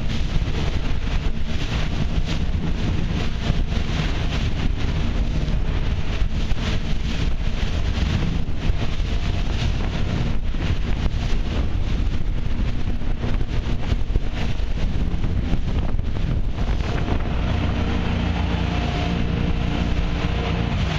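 Wind buffeting the microphone on a boat running fast through choppy sea, with the rush of water along the hull and the steady drone of its engine underneath, the engine hum a little clearer near the end.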